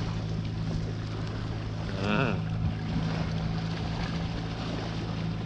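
Boat engine running steadily, a constant low hum that holds its pitch, with a brief voice about two seconds in.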